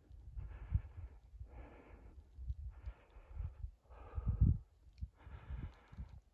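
A hiker breathing hard on a steep uphill climb, about one breath a second, with low thumps underneath, the loudest about four seconds in.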